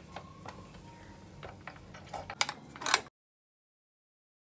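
Light plastic clicks and knocks of an Ikon electric sandwich maker being unlatched and its lid opened, with a few sharper clicks about two and a half seconds in; the sound then cuts off abruptly.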